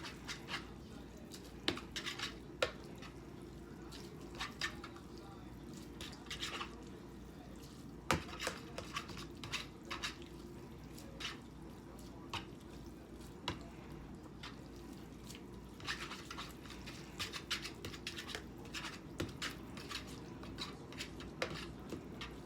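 Scattered light clinks of a utensil against a bowl of ramen, with wet, dripping sounds of noodles in sauce.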